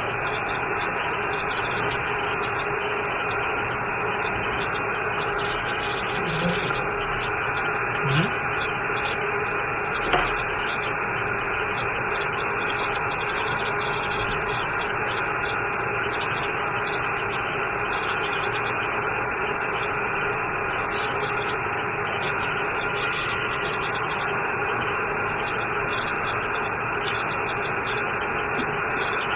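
Steady hiss of an electric bench blower or fan running, with a faint hum, and a few light knocks of tools on the bench.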